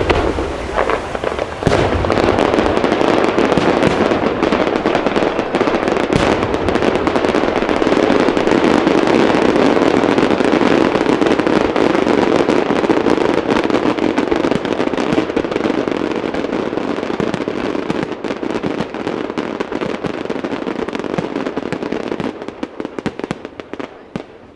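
Fireworks display at full barrage: a dense run of shell bursts and crackling, with a sharp bang about two seconds in. The noise thins out and fades away over the last few seconds.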